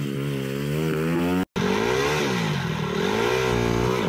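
Dirt bike engine revving, its pitch rising and falling as the throttle is opened and closed. About a second and a half in it drops out briefly and then a second dirt bike is heard revving up and down repeatedly.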